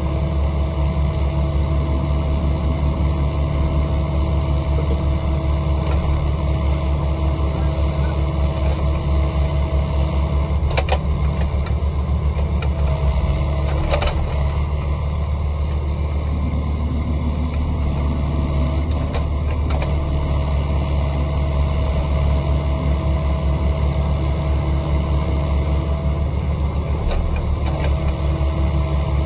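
Diesel engine of a Caterpillar compact tracked excavator running steadily at a constant speed, with the machine standing still. Two sharp knocks are heard around the middle.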